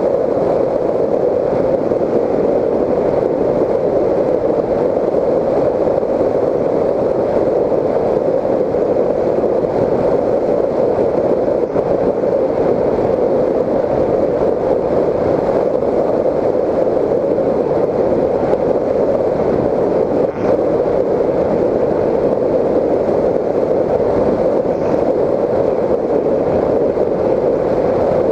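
Raptor 1600 RC plane in flight, heard from its onboard GoPro: a steady rushing drone of airflow mixed with the electric motor and propeller.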